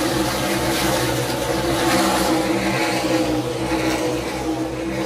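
NASCAR Cup Series stock cars' V8 engines running on the track, a loud steady drone from the field of cars.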